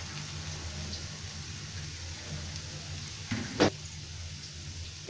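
Chopped cauliflower and tomato frying in oil in a non-stick pan, giving a steady gentle sizzle over a low hum. There is one short sharp knock about three and a half seconds in.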